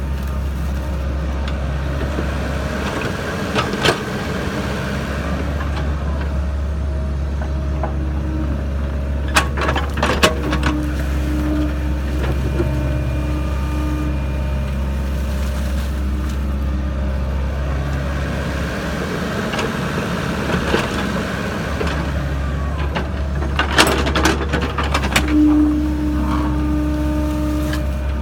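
Sany SY55C mini excavator's diesel engine running steadily under work, with a short steady whine twice and a few sharp clanks and knocks, clustered around ten seconds in and again near the end.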